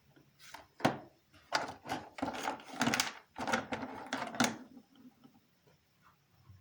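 A quick run of clicks, knocks and short rustles from small objects being handled, starting about half a second in and stopping after about four seconds.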